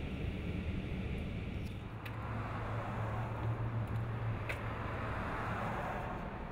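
Steady low rumble of a car on the move, engine and road noise, with a few faint clicks; its character changes about two seconds in.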